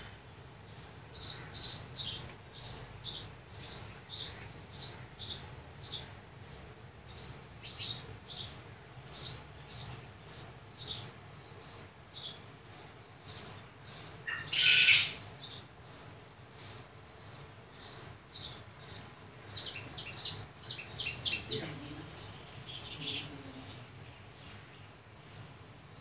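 A bird outside chirping repeatedly in a steady series of short, high chirps, about two to three a second, with one longer, louder call about midway and looser, more scattered chirps toward the end.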